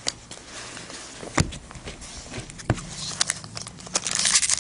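Trading cards set down on a table with a few sharp taps, then a foil card pack wrapper crinkling, building up near the end.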